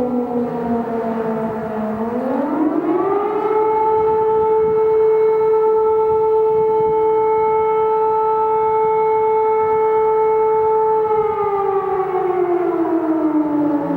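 Civil defense siren wailing: its low tone rises about two seconds in, holds a steady higher pitch for about seven seconds, then slowly falls back down near the end.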